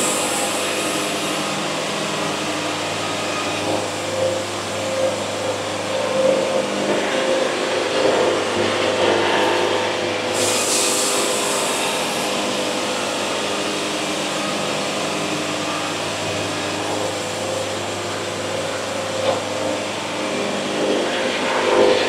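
Band sawmill running and sawing a squared log: a steady machine hum with the blade cutting through the wood, and a brief burst of hiss about ten seconds in.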